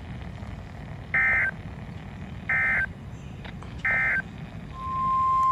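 End-of-message signal of an Emergency Alert System warning: three short bursts of SAME digital data tones, each about a third of a second and about 1.4 s apart, over background radio hiss. Near the end a steady single tone near 1 kHz begins and holds, the 1050 Hz NOAA Weather Radio attention tone.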